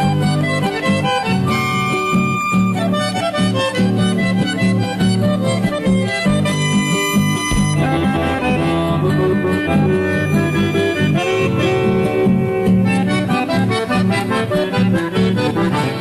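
Instrumental folk music, with an accordion playing the melody over guitar accompaniment.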